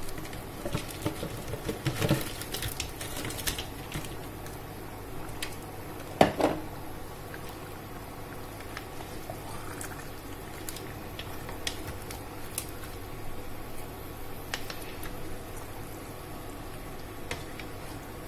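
Pot of vegetable soup simmering, with scattered pops and clicks and a few knocks against the pot, the loudest about six seconds in.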